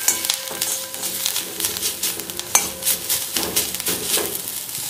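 Sliced onions sizzling in a little oil in an iron kadhai while a wooden spatula scrapes and taps against the pan as they are stirred.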